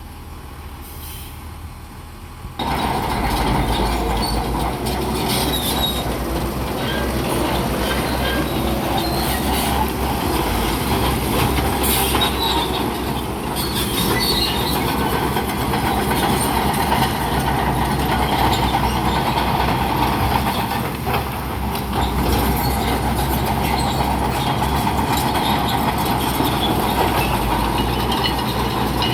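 Bulldozer at work: engine running under load while its steel crawler tracks clank and squeal. The sound starts suddenly about two and a half seconds in and runs on steadily.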